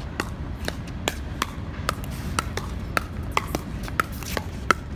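Pickleball paddles striking a plastic pickleball in a fast doubles rally: a quick run of sharp pops, about two to three a second, some louder than others.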